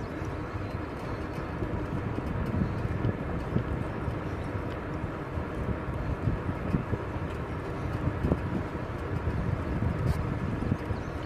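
Wind buffeting the microphone of a moving bicycle, a low gusty rumble, with tyre noise from a Huffy beach cruiser rolling on asphalt beneath it.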